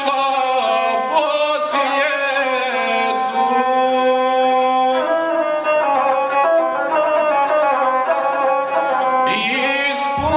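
Gusle, the single-string bowed folk fiddle, playing a wavering, nasal melody with long held notes. The player's singing voice is there at the start and comes back just before the end.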